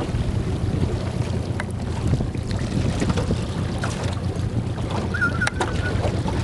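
Small boat running under way: a steady low motor rumble under rushing water and wind buffeting the microphone. About five seconds in there is a short wavering whistle.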